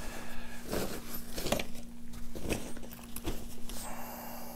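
Handling noise: a handful of short knocks and rustles, about one a second, as a small digital scale and nylon chair stuff sacks are moved and set down on a cloth. A steady low hum runs underneath.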